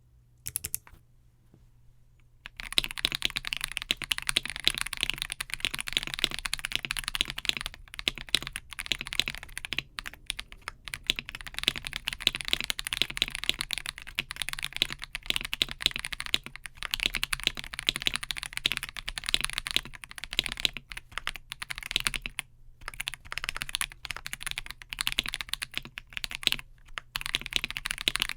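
Fast typing on a KBD67 Lite R2 mechanical keyboard with lubed Akko CS Ocean Blue switches, Holee-modded C³Equalz stabilizers and butyl sound deadener. After a near-quiet start with a single click, a steady run of keystrokes begins about two and a half seconds in, broken by a couple of short pauses near the end.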